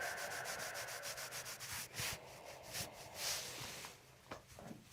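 Hands rubbing on the patient's body during a chiropractic treatment: a quick run of short rubbing strokes, then a few longer swishes.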